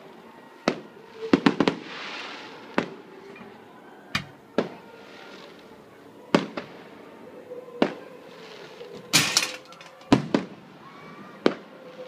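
Aerial fireworks shells bursting: a series of sharp bangs at uneven intervals, some in quick clusters of two or three, with a rapid crackling run about three-quarters through and hissing swells between the bangs.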